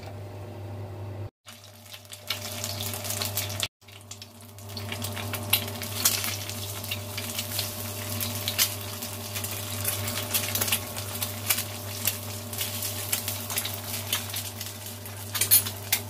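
An egg frying in hot oil in a wok, sizzling with frequent sharp crackles and pops. The sound drops out briefly twice in the first four seconds, then becomes louder and busier from about four seconds in, with a steady low hum underneath.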